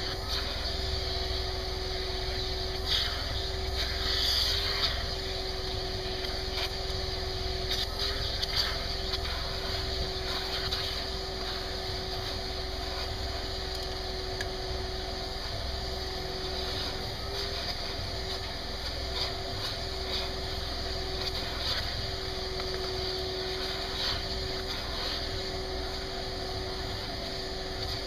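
Shop vacuum running steadily, with a constant whine, as its hose is drawn over a short-haired dog's coat to suck up loose hair.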